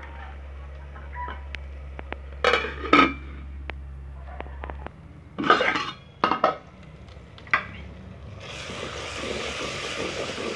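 A metal spoon scraping and clinking against an aluminium pot of curry as it is stirred, in several short bursts with faint clicks between them. About eight seconds in, a steady rushing noise sets in and carries on.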